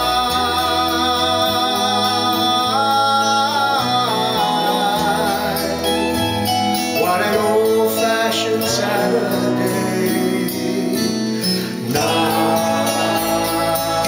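Recorded music playing through a pair of Triangle Titus 202 bookshelf speakers, picked up by a microphone in the room.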